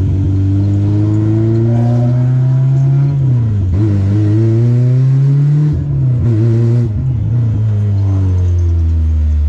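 Car engine revving: the pitch climbs for about three seconds, dips, climbs again, drops sharply just before the middle, then falls away toward the end.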